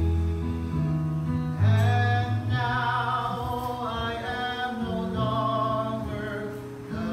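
Mixed choir of men and women singing in harmony, holding long notes, growing louder about one and a half seconds in.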